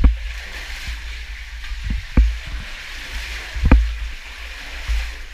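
Steady hiss of a small underground stream flowing, with four dull thumps spread across the few seconds.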